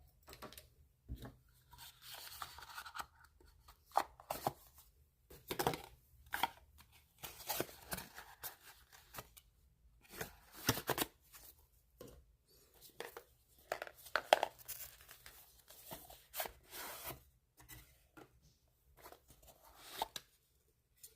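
Packaging being handled and opened by hand: irregular rustling and tearing with sharp clicks and knocks.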